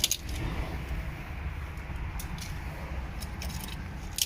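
A few sharp metallic clicks and taps of hand tools working on a loose terminal screw in an electrical box, the loudest near the end, over a steady low rumble.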